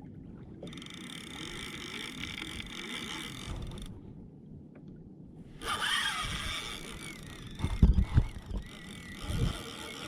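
A Penn Spinfisher VI spinning reel being cranked in two spells, whirring with a squeak that the angler puts down to a dry O-ring and a reel in need of a clean. A few heavy knocks come near the end.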